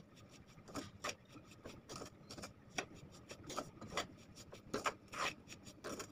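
Metal spoon scraping and stirring a dry, coarse mixture of ground coriander, dry fruit and powdered sugar around a metal kadhai: irregular rasping strokes, two or three a second.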